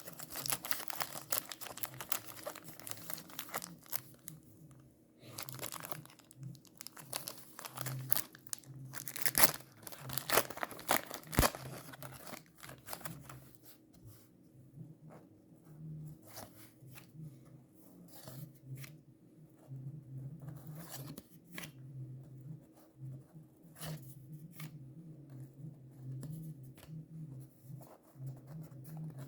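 A pack of 1990 Score baseball cards torn open, the wrapper tearing and crinkling, loudest about ten seconds in. After that come lighter, scattered clicks and rustles as the cards are handled.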